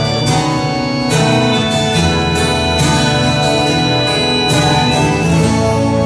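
Live acoustic guitar strumming chords with keyboard accompaniment, new chords struck every second or so over held tones.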